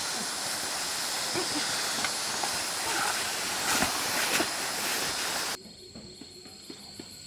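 Rushing water of a mountain stream, a loud, even hiss with a few small knocks, which cuts off suddenly about five and a half seconds in. It gives way to a quieter background of steady high-pitched insect buzzing.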